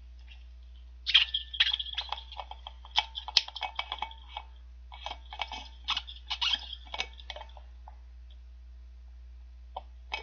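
Drinking from a stainless steel tumbler with its lid open: a run of short, irregular clicks and gulps from about a second in until about seven and a half seconds in, with a couple of faint clicks near the end.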